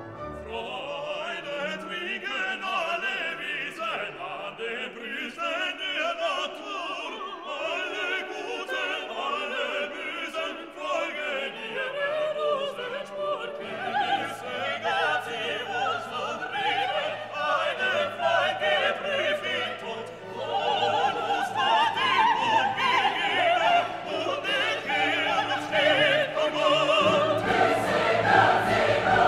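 Classical orchestral music with operatic solo and choral singing, swelling louder in the second half.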